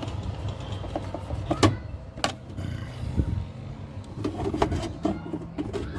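A screw being fastened into the top of a washing machine cabinet with a tool: two sharp metallic clicks a little over a second and a half and about two and a quarter seconds in, then smaller knocks, over a low steady hum.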